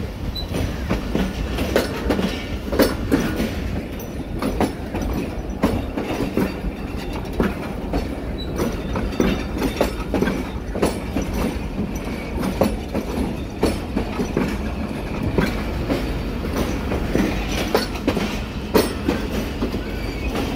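Pakistan Railways passenger coaches rolling past at close range, pulling slowly out of the station. The wheels click irregularly over rail joints above a steady low rumble.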